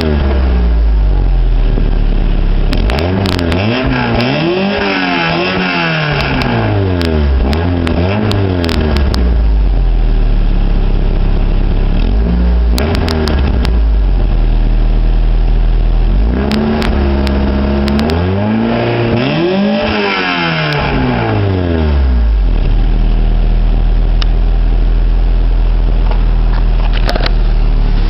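1991 Honda Accord EX's 2.2-litre four-cylinder revved up and down in repeated blips, then settling into a steady idle for the last several seconds. The exhaust has several leaks, which make it sound racy under revs.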